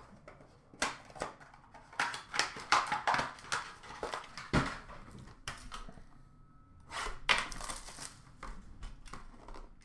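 Cardboard trading-card box and its wrapper being handled and torn open: crinkling, rustling and tearing in bursts, with a few sharp taps and a knock about halfway through.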